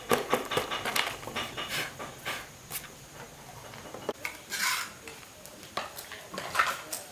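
Small metal parts and tools clinking and knocking as they are handled during a repair: a quick flurry of clicks in the first two seconds, then scattered knocks and short scrapes.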